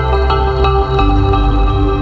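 Ambient background music: held notes over a low bass, the chord changing about a second in.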